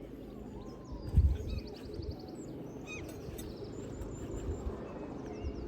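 Outdoor ambience with small birds chirping and one giving a short, fast trill, over a steady low background rumble. A few low thumps on the microphone, the loudest about a second in.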